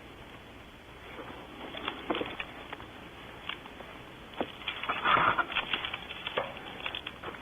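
Irregular clicks, taps and scratchy rustles, with a louder scraping rustle about five seconds in.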